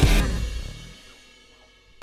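Background rock music ending on a final drum and cymbal hit that rings out and fades to near silence.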